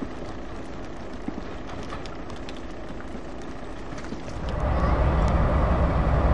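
Class 47 diesel locomotive's Sulzer engine running steadily as it approaches hauling coaches, fairly distant. About four and a half seconds in it gives way to a much louder, deeper diesel locomotive engine running close by.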